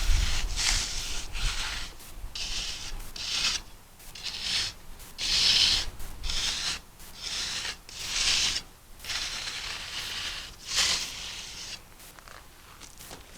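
Magnesium float drawn across fresh concrete, a series of short rasping strokes with brief pauses between them.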